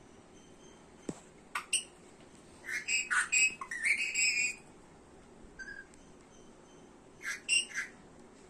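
Pet parrot giving short, shrill chirping calls in scattered bursts, the longest run a couple of seconds in and another pair near the end, with a faint click about a second in.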